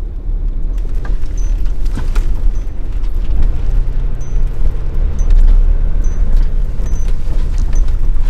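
Puch high-roof 4x4 camper van driving: a deep, steady rumble with an engine hum that settles in a few seconds in, a few clicks and short faint high chirps over it.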